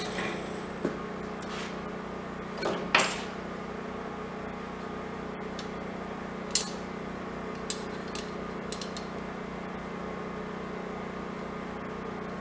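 A few scattered knocks and clicks, the loudest about three seconds in, over a steady low hum.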